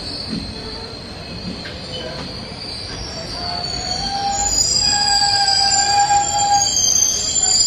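Passenger express train's wheels squealing on the rails as the coaches roll past, several high steady tones over a rumble, growing louder from about three seconds in.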